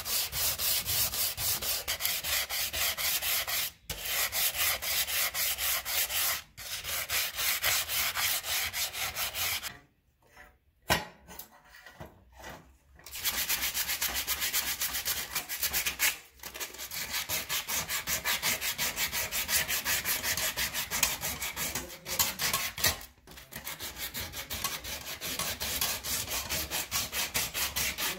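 Hand sanding of a steel sword blade with sandpaper: a fast, even back-and-forth rasping of several strokes a second. It stops briefly a few times and pauses for a few seconds about a third of the way in.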